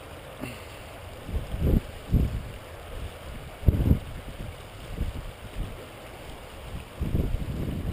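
Shallow river running steadily, with irregular low rumbling buffets, loudest a couple of seconds in, again near four seconds and near the end.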